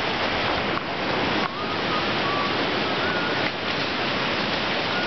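Shallow river rushing over rocks: a steady, loud rush of water.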